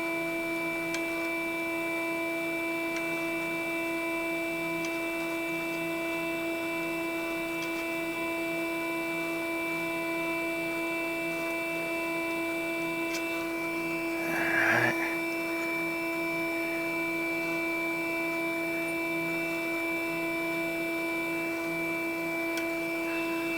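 Micro glassblowing lathe running at a slow rotation, giving a steady hum of several tones. A short, brief higher sound stands out about fifteen seconds in.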